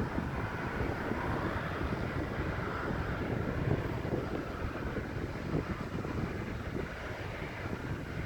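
Boeing 787 jet engines heard from a distance as a steady rumble with a faint whine, mixed with gusty wind buffeting the microphone.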